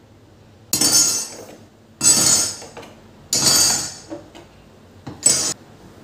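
Kitchenware clattering on a stone counter: four short, sharp clatters a second or so apart.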